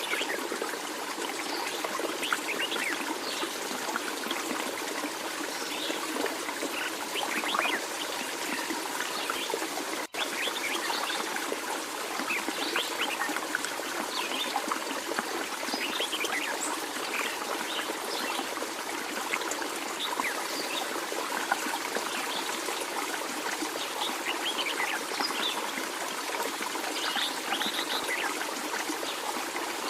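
Water trickling steadily, like a small stream, with a brief dropout about ten seconds in.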